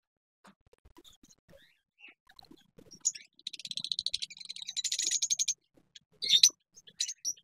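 Caged lovebirds chirping: a fast, shrill run of high chirps starting about three and a half seconds in and lasting about two seconds, then a few short chirps near the end, over faint scattered clicks.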